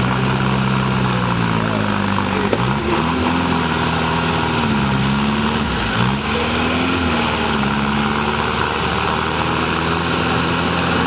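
Engine of a lifted off-road Toyota pickup working through deep mud: steady running, with the revs dipping and then rising in two surges, about three and seven seconds in.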